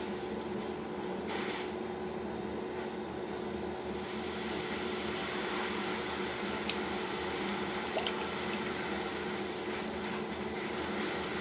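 Water trickling and bubbling in a turtle tank, over a steady hum, typical of an aquarium filter running. Small drip-like ticks come now and then, more of them in the second half.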